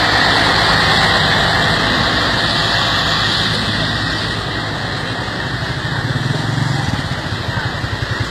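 Road vehicle engine running close by amid traffic noise, with no horn sounding; from about six seconds in a low throbbing engine sound grows more prominent.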